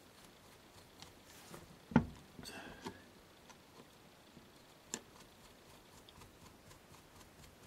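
Small scattered clicks of a screwdriver working slotted screws into a Biax power scraper's head. The scraper is handled on a wooden bench, with one sharp knock about two seconds in and a few lighter clicks after.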